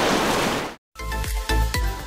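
Steady rush of water spray and wind from a boat with three outboard motors running at speed, cut off abruptly under a second in. After a brief gap, music with a steady beat starts.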